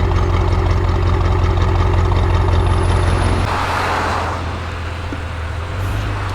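Audi RS6 Avant C7's twin-turbo V8 with a Milltek exhaust, loud and running steadily at idle with no revving. About three and a half seconds in, the note settles a little lower and a short hiss lasts about a second.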